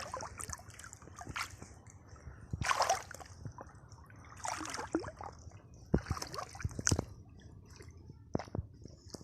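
Shallow water splashing and sloshing in irregular bursts as someone works by hand in it, with a few sharp knocks.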